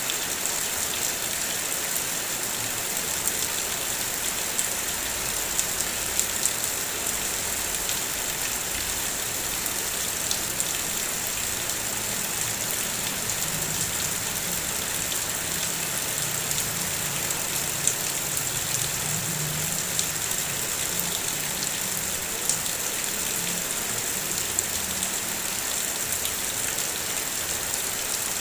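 Steady heavy rain on a car, with many separate drops tapping on the body. A low hum comes up in the middle and fades away again.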